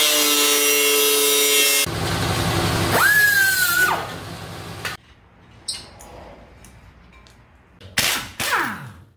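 A run of shop power-tool sounds: an angle grinder cutting steel with a steady whine that stops sharply about two seconds in, then harsher tool noise with a brief high whistle. Near the end, two short bursts from a pneumatic impact wrench on a wheel's lug nuts, each winding down.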